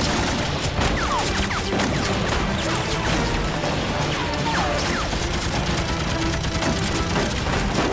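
Sustained heavy gunfire, many shots overlapping with no break, with a few short falling whistles among them, over background music.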